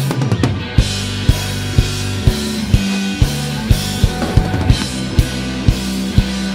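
Live rock band playing an instrumental passage: drum kit keeping a steady beat of about two hits a second under held electric bass notes and electric guitar. It opens with a quick drum fill.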